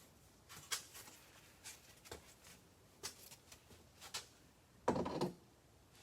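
Handling sounds of boxes and packaging on a table: scattered light clicks and rustles, and a louder knock and scrape about five seconds in.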